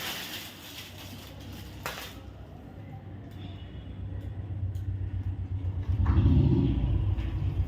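A low rumble that swells over a few seconds, loudest near the end, then begins to fade.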